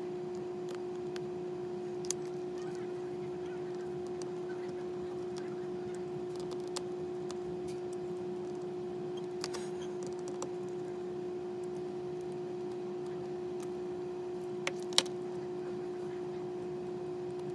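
A steady hum, with a few faint clicks of small repair tools against a MacBook Air's metal parts, the loudest about 15 seconds in.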